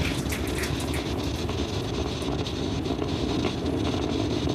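Falcon 9 first stage's nine Merlin 1D engines at full thrust during ascent: a steady, dense rumble with crackle that thins out after about a second.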